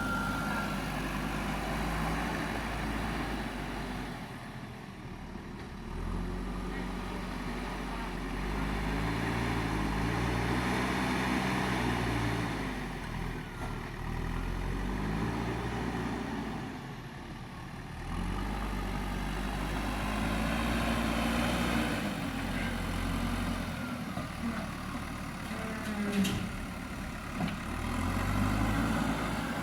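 Diesel engine of a JCB 3DX backhoe loader running under load, its pitch rising and falling again and again as the machine digs and swings, with a sharp metallic click near the end.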